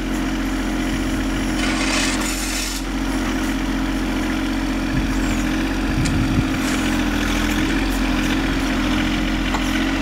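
John Deere 1025R compact tractor's three-cylinder diesel engine running steadily while it powers the rear backhoe, with a brief scraping sound about two seconds in.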